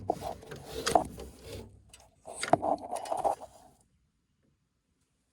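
Sharp clicks and knocks with scraping in between, from parts and tools being handled during work on a furnace blower. The sound cuts off abruptly to dead silence a little before four seconds in.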